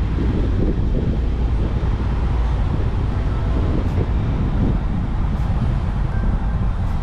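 Wind buffeting the microphone: a loud, gusty low rumble that does not let up.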